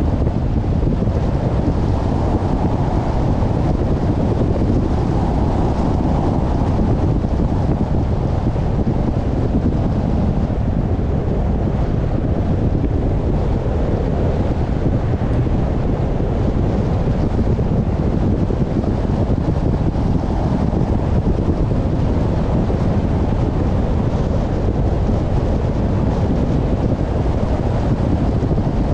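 Wind buffeting the microphone over the road noise of a moving car: a loud, steady, low rumble.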